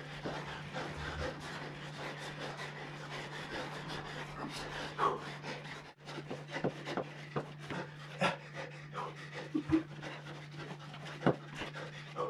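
Heavy panting from people out of breath mid-workout, with short knocks and rustles as they move on the floor. A steady low hum runs underneath.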